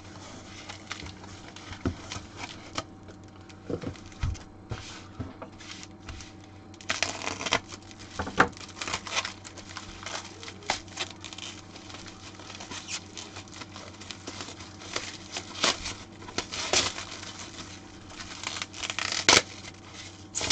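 Hands unpacking soldering-station parts: plastic packaging crinkling and tearing, with irregular clicks and knocks as pieces are handled and set down, over a steady low hum.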